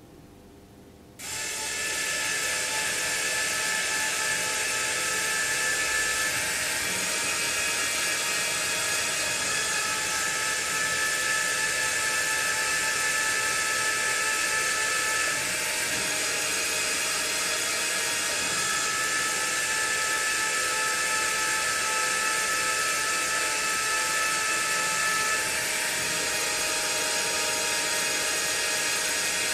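Electric motor mechanism of a hanging kinetic sculpture starting up about a second in and running steadily, a high mechanical whine whose pitch shifts a couple of times.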